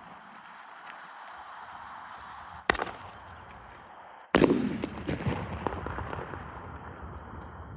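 A Night Owl Thunder King single-shot aerial firework goes off. A sharp launch report comes about two and a half seconds in, then the shell breaks with a louder bang under two seconds later, followed by scattered small pops and a rumbling echo that fades away.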